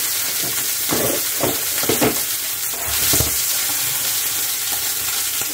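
Frankfurter sausages sizzling in a frying pan, a steady hiss, with a few short knocks of a utensil moving them in the pan.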